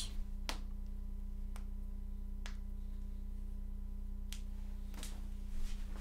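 A handful of short, light clicks, the first three about a second apart, over a steady low electrical hum.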